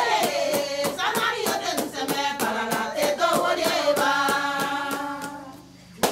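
A group of women singing together unaccompanied while clapping a steady beat, about three claps a second. The singing and clapping die away just before the end.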